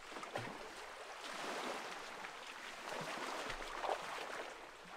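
Small waves washing gently on a sandy shore, with a few soft footsteps in the sand.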